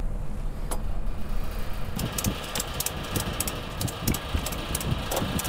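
Ratchet straps being cranked tight on a motorcycle's front wheel, with rapid clicking at about four to five clicks a second from about two seconds in, over a steady low hum.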